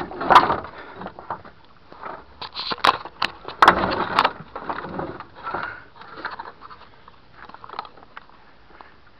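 Scattered sharp knocks and clanks from hand work on a pickup's gearbox, over rustling handling noise, with a cluster of knocks a few seconds in.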